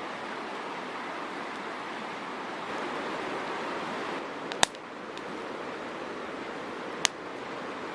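Campfire burning with a steady rushing noise, broken by two sharp pops of the burning wood, about four and a half and seven seconds in.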